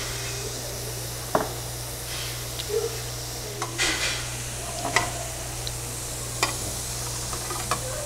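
Meat sizzling on a tabletop barbecue grill over a steady low hum, with several sharp clicks of metal tongs and scissors against the grill plate and dishes.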